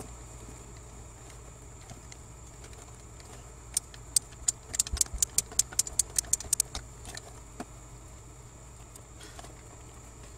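Socket ratchet clicking in a quick run of about five clicks a second for some three seconds, turning the nut on a Ford Ranger's manual shifter pivot bolt to press the bolt out.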